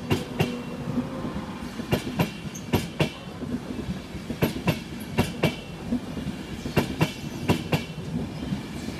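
An electric InterCity 225 train's Mk4 coaches rolling past close by, the wheels clacking in close pairs over a rail joint as each bogie goes by, over a steady rumble.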